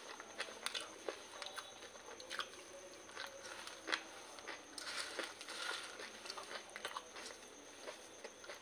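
Crunchy chewing of dry puffed rice (muri) mixed with crisp fried jhuri bhaja, with light crackling as fingers stir the puffed rice in a steel bowl. The sound is a stream of small crisp crunches, with one sharper crack about four seconds in.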